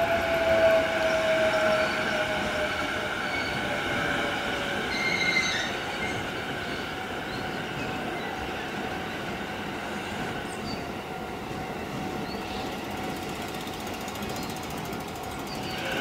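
Japanese level crossing warning bell ringing steadily while an orange-striped JR E233 series commuter train runs past over the crossing, its wheels rumbling on the rails. The train noise is loudest in the first few seconds, with a falling whine, and then settles lower while the bell keeps ringing.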